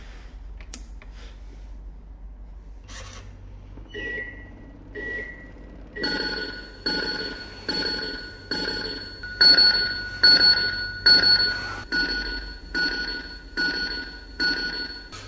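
Electronic sound effect from an RC truck's GT Power multi-function sound unit: two short beeps, then, from about six seconds in, a ringing electronic tone repeating a little more than once a second.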